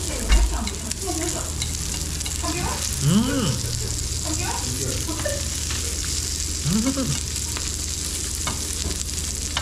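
Pork pieces sizzling steadily on a hot Korean barbecue grill plate, with metal tongs clicking against the plate now and then as the meat is turned. A man's voice gives two short drawn-out exclamations, about three seconds in and again near seven seconds.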